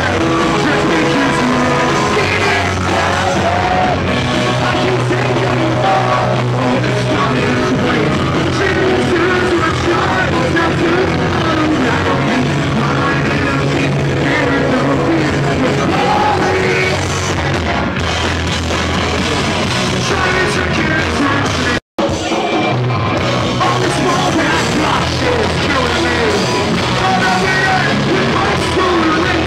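A punk rock band playing loud live, with singing and yelling over drums and guitars, recorded from inside the crowd. The sound cuts out completely for a split second about 22 seconds in.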